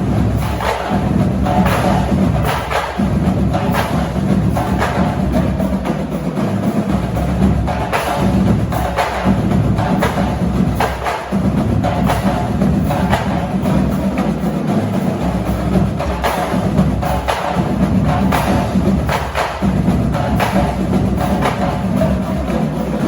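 Marching drumline playing: fast, sharp snare-drum strokes and clicks over pitched bass-drum notes that shift every second or two.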